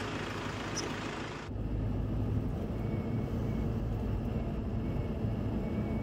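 Car driving along a road, a steady deep rumble that sets in abruptly about one and a half seconds in, after a brief steady hiss.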